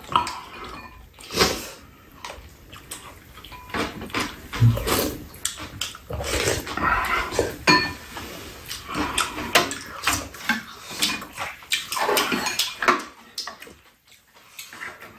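Close-up eating sounds: chewing and slurping, with wooden spoons and chopsticks knocking against bowls and a frying pan in quick irregular clicks.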